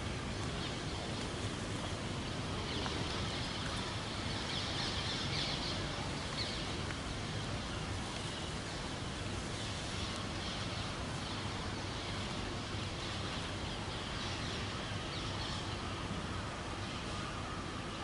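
Steady outdoor background noise, with faint bird calls now and then.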